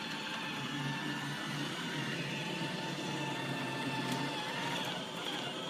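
iRobot Roomba 880 robot vacuum running on carpet: a steady motor and brush hum with a constant whine.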